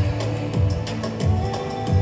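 Live orchestral concert music with a steady beat and repeating bass notes under held chords.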